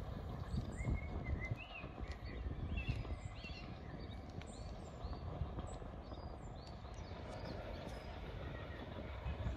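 Small birds chirping and singing in short, scattered phrases over a low, uneven outdoor rumble.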